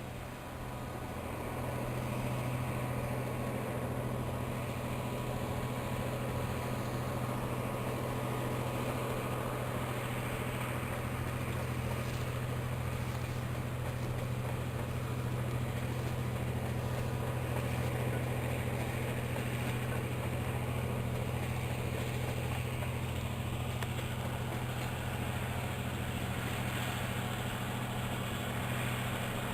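A steady low machine hum running without a break over a constant noisy background.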